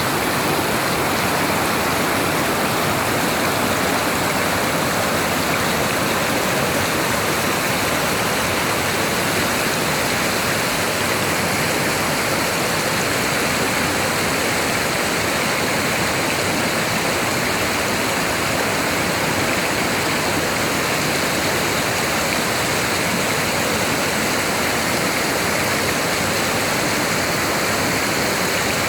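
Mountain valley stream rushing steadily, a dense, even hiss of running water that holds constant throughout.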